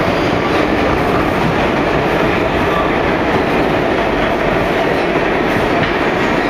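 R142 subway train running through a tunnel, a steady loud rumble and rattle of wheels on the rails, heard from inside the train.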